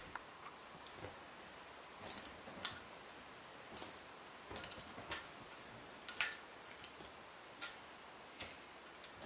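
Zippo lighter being flipped through tricks: a string of sharp metallic clicks and clinks as the lid flicks open and snaps shut, irregularly spaced, some ringing briefly.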